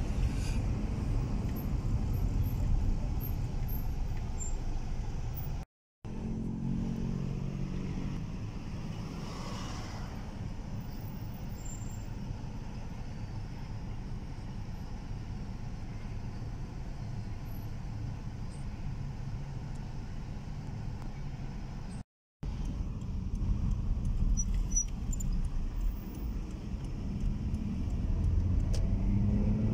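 Inside a moving car: a steady low rumble of engine and road noise. It cuts out completely for a moment twice.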